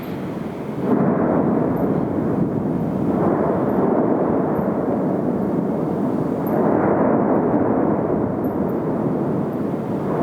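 Erupting volcano: a continuous deep, loud noise from the vent that swells suddenly about a second in, again around three seconds in, and once more near seven seconds in.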